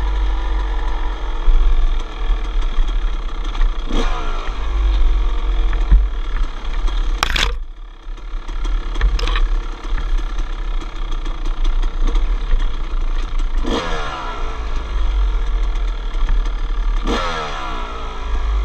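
A 250cc two-stroke dirt bike engine running on the trail, revving up sharply and falling away several times with the throttle. There are occasional sharp knocks, and a heavy low rumble runs under it.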